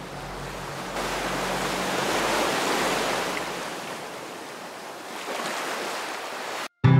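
Sea waves washing onto a beach: the surf swells up and dies away, then swells again more softly, and cuts off suddenly just before the end.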